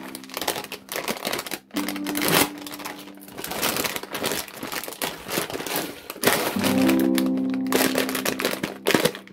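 Thin clear plastic bag crinkling as it is handled and cut open, over background music with held low notes.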